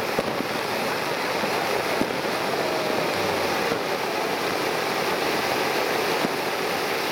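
Ground fountain firework spraying sparks: a steady hiss, with a few faint sharp pops.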